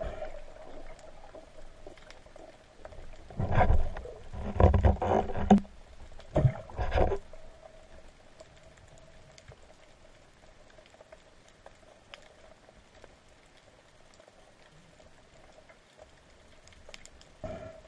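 Underwater sound during a breath-hold spearfishing dive: a steady faint hum, broken between about three and seven seconds in by three loud bursts of rushing, gurgling noise, with a short one near the end.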